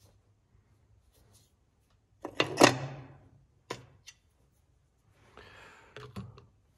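Tools and parts being handled: one loud clatter about two seconds in, then a sharp click, a soft rustle and a couple more clicks near the end.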